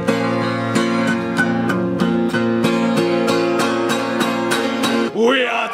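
Acoustic guitar strummed in a steady rhythm with banjo playing along: the instrumental introduction before the first verse of a folk song. A man's voice starts singing near the end.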